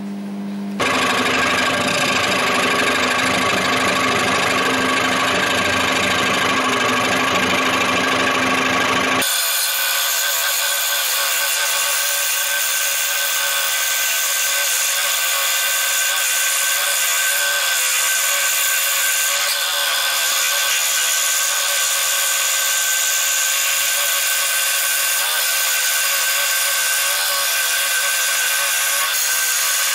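Proxxon scroll saw running steadily, its reciprocating blade cutting a curve in a hardwood board. About nine seconds in, the low hum under the sound drops away, and the higher buzz of the cut carries on.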